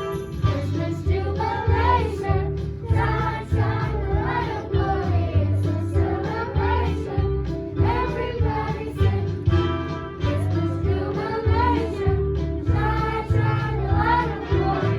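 A group of children singing a song together over instrumental accompaniment, with a steady pulsing bass line underneath.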